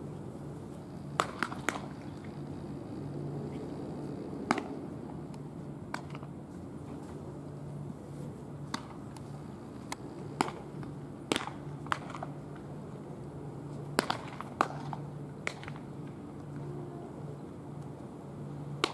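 Baseballs smacking into leather gloves during a game of catch: about fifteen sharp pops at irregular intervals, some close and loud, others fainter from pairs further off. A steady low hum runs underneath.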